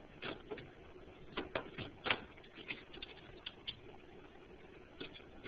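Light plastic clicks and knocks, about eight spread unevenly, from toner cartridges and their tabs being handled in a Samsung CLP-300 colour laser printer.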